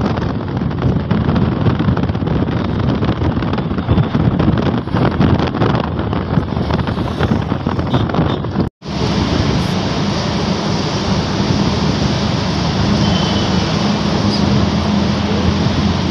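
Inside a car travelling fast on a highway: steady road and wind noise with the engine's drone underneath. The sound cuts out for an instant about nine seconds in, then carries on steadier with a low hum.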